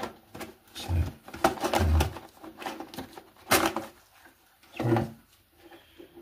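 Plastic parts of a Dudley 88 Turbo toilet siphon clicking and knocking as they are handled and pushed together, with a sharp knock about three and a half seconds in.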